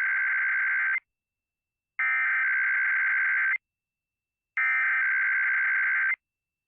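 Emergency Alert System SAME header: three identical bursts of shrill, warbling digital data tones, each about a second and a half long and a second apart. It is the coded header of a Required Weekly Test, which carries no attention tone.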